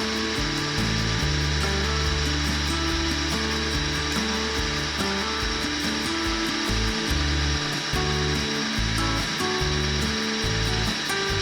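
Background music with a steady beat over an electric drill boring a hole through a ceramic pot, running steadily with a thin high whine.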